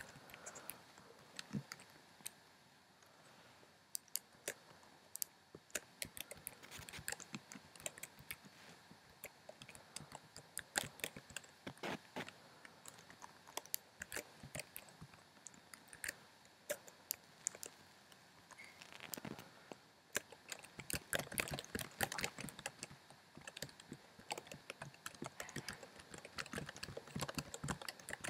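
Typing on a computer keyboard: keystrokes come one by one and spaced out at first, then turn into fast, dense key-mashing from about two-thirds of the way in.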